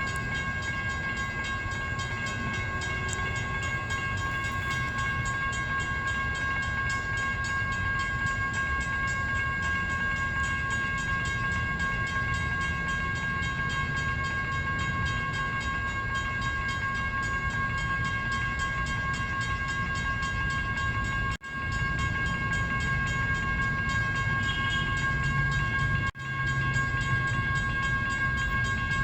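CSX freight train rolling past with a steady low rumble, over which a high-pitched ringing tone holds without a break. The sound cuts out for an instant twice near the end.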